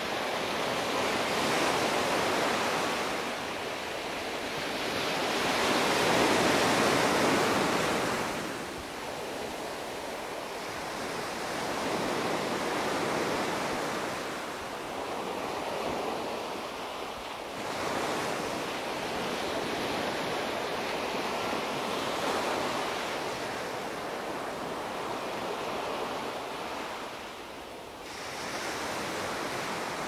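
Small sea waves breaking and washing up a sandy beach. The hiss of the surf swells and fades every few seconds, loudest about six seconds in.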